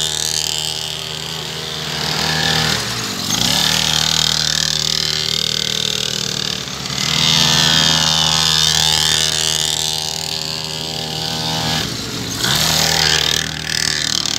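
Mini dirt bike's small engine running at part throttle, swelling and fading several times as the bike circles close by and away, with brief dips where the throttle eases.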